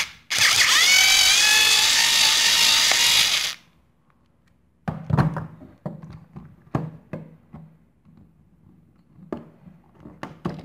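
A power drill with a screwdriver bit runs for about three seconds, its whine rising in pitch as it spins up, backing a screw out of the plastic housing of a 90-degree angle drill adapter. A moment after it stops, a series of sharp plastic clicks and knocks follow as the housing is handled and pried apart.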